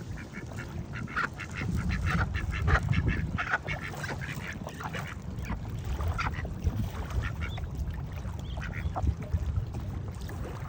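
Ducks quacking in quick runs of short calls, busiest in the first few seconds and then more scattered, over a low steady rumble.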